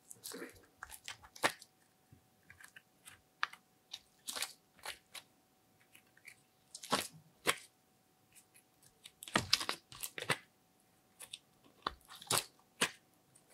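Thin plastic compartment tray clicking and crackling in scattered clusters as it is flexed and squeezed to pop out blocks of coloured clay, with taps as the pieces and tray meet the glass dish. A faint steady hum runs underneath.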